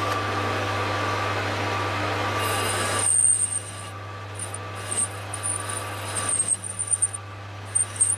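Denford Easiturn lathe running with a steady motor hum while the tool cuts the recess to final diameter. From about three seconds in, a high, intermittent squeal comes from the cut.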